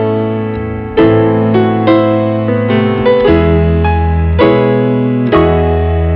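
Slow piano music: notes struck about every half second over held bass notes.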